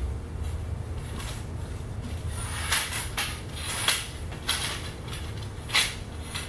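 Metal frame poles of a TRAK folding kayak knocking and clicking as they are handled and fitted together, about five sharp clatters in the second half, over a steady low hum.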